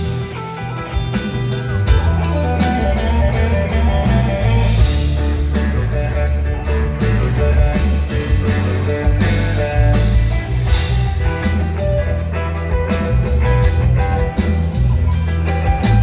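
Live rock band playing, with an electric guitar to the fore over a steady bass line and a drum kit.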